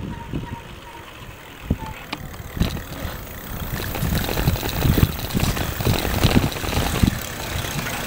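Riding noise of an electric bicycle: wind and road rumble on a handlebar-mounted microphone, with many irregular knocks and rattles from the handlebars, which have come loose.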